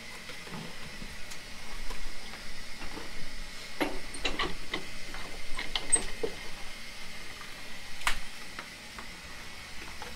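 Kitchen handling sounds: scattered short taps, clicks and rustles as large leaves, a plastic basin and dishes are handled while tamales are wrapped, over a steady faint hiss. The taps come thickest a few seconds in, with one sharper knock near the end.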